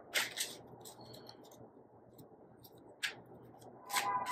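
Tarot cards being shuffled by hand: soft papery flicks and rubs that thin out after the first second, with one more flick about three seconds in.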